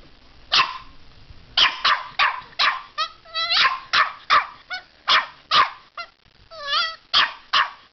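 Puppy barking repeatedly, about a dozen short, sharp barks in quick runs, with a high, wavering whine twice in between.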